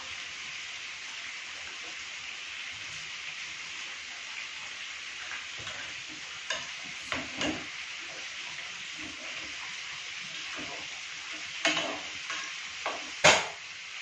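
A steady hiss from a pot of vegetables cooking on the stove, with scattered clinks and knocks of a utensil against the pot from about six seconds in. The loudest knock comes near the end.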